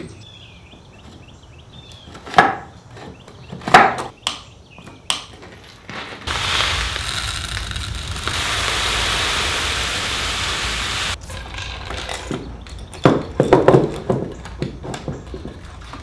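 Birdseed poured from a bag into a wooden bird feeder's plexiglass hopper: a steady hiss of pouring seed lasting about five seconds. It comes between scattered knocks and clicks of the feeder being handled.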